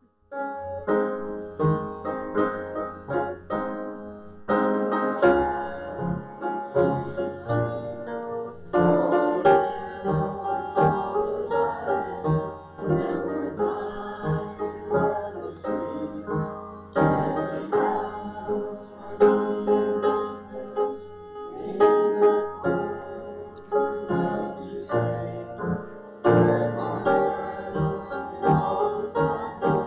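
Piano playing a hymn tune. The music starts right after a brief silence and goes on steadily.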